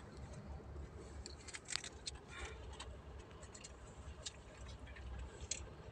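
Quiet car cabin: a low steady hum, with scattered small clicks and rustles of things being handled.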